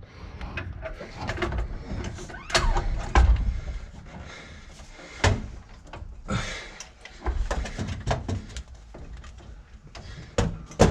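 Irregular metal clunks, knocks and scrapes as a transmission is wrestled up into line with the engine from under the car, with a few sharper impacts, the loudest near the end.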